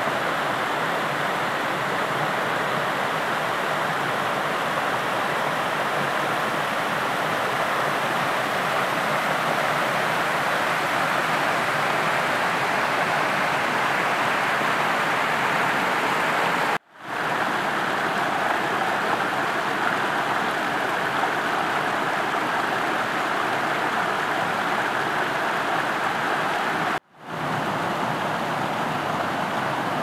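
Small creek waterfalls rushing steadily over rock ledges. The sound cuts out briefly twice, about 17 and 27 seconds in.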